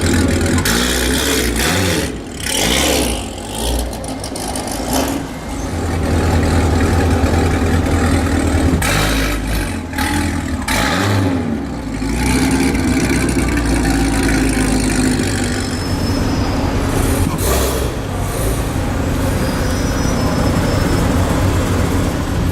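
Loud Chevrolet Corvette V8 engine, drag-built, idling and revved up and down a couple of times.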